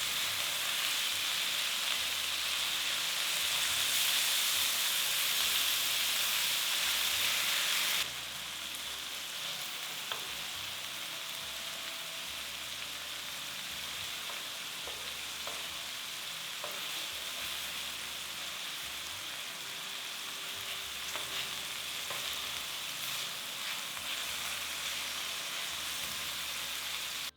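Food sizzling in a hot frying pan, a steady hiss with a few small clicks. It drops suddenly to a quieter sizzle about eight seconds in.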